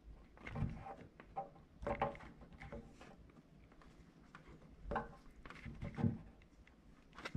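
Faint handling noises as a plastic threaded connector cap is screwed onto the DC input of an FM transmitter: scattered small rubs, scrapes and light knocks at irregular intervals.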